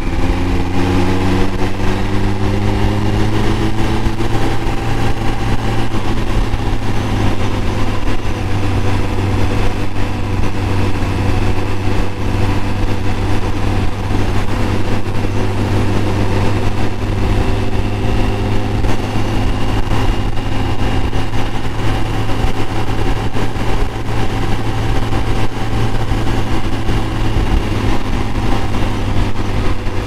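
Kawasaki Concours 14's inline-four engine running as the bike rides, with steady road and wind noise, picked up by a microphone in the console. The engine note rises over the first few seconds, then holds fairly steady.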